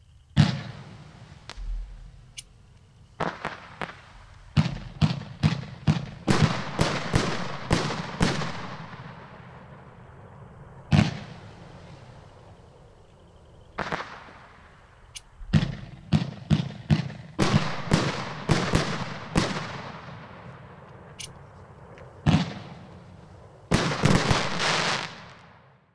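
Road Killers 500-gram fireworks cake firing: a long run of sharp shots as the tubes launch and the shells break loudly overhead. The shots come in dense volleys separated by gaps of a second or two, each one followed by a short fading echo.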